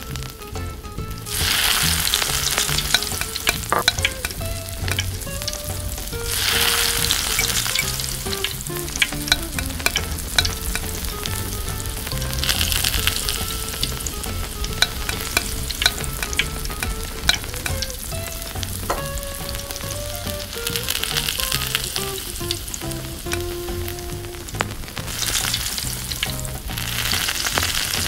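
Vegetables sizzling in hot oil in a tiny steel wok, stirred with a small metal fork that clicks against the pan. The sizzle surges louder about five times.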